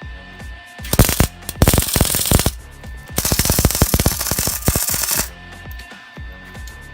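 MIG welder striking an arc and laying short test beads: three bursts of steady crackle, a brief one about a second in, then one of about a second, then a longer one of about two seconds.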